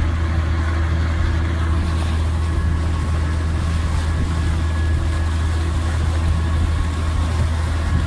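A tour boat's engine running steadily, heard from on board, as a low hum with a few faint steady higher tones over it.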